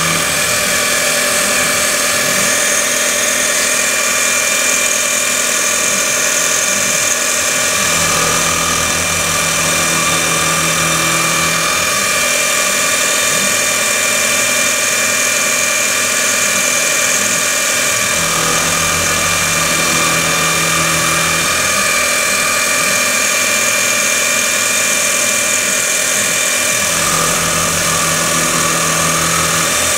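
A CNC milling machine running an 8 mm end mill through ABS plastic under flood coolant: a steady spindle whine with the cutter chewing through the plastic. A lower hum comes in for three or four seconds at a time, about every ten seconds.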